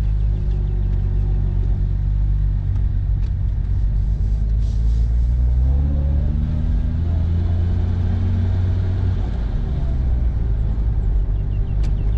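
1966 Jaguar E-Type Series I's straight-six engine driving the car along, heard from the open cockpit: a steady low rumble that rises in pitch as the car accelerates about halfway through, then eases back a few seconds later.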